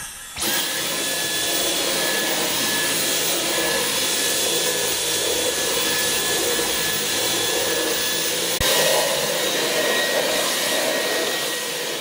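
Dyson Cyclone V10 cordless vacuum running steadily with its motorised brush head on carpet: a steady rush of air with a faint high whine on top. It starts about half a second in, and there is a brief click and a slight change in the sound about two-thirds of the way through.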